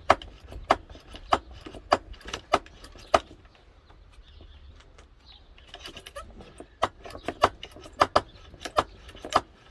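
Brake bleeder's pump being worked by hand to build pressure: sharp metallic clicks at about one and a half strokes per second, a pause of a few seconds midway, then more strokes.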